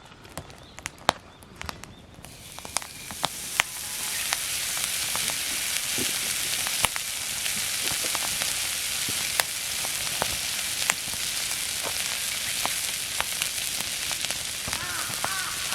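Meat sizzling over a campfire, with sharp crackling pops. The sizzle swells a couple of seconds in and then holds steady.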